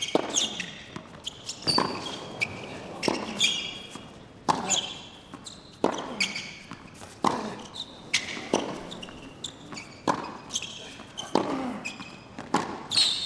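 Tennis rally on a hard court: a ball struck back and forth by rackets, a sharp pop about every one and a half seconds, with short high squeaks between the strikes.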